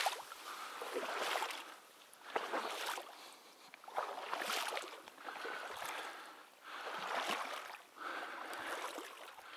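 Footsteps through wet reeds and marsh grass at the water's edge, a swish of vegetation with each step, roughly once a second.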